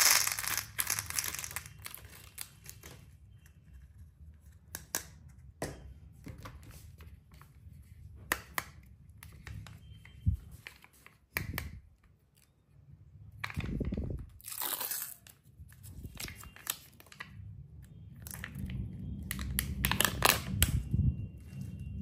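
Plastic candy packaging crinkled and torn open by hand. The loudest crinkling is at the start, as a sachet of small candies is emptied. Scattered clicks and rustles follow, then more tearing and rustling in the second half as a sealed Kinder Creamy cup is opened.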